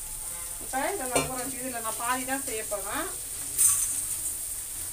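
Onions, green chillies and curry leaves sizzling steadily in oil in an aluminium kadai. A voice comes in for a couple of seconds in the middle, and a short rustle near the end as dry flattened rice (aval) is poured from a plastic bag into a steel pot.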